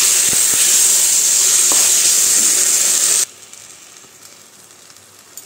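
Onion-and-spice paste sizzling as it fries in butter in a kadhai, stirred with a wooden spatula, with a few faint scrapes. The sizzle cuts off suddenly about three seconds in, leaving only a faint hiss.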